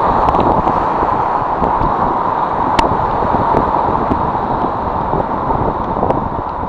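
Sea surf surging and breaking over shoreline rocks, with wind buffeting the microphone: a loud, steady rushing noise. A single sharp tick about three seconds in.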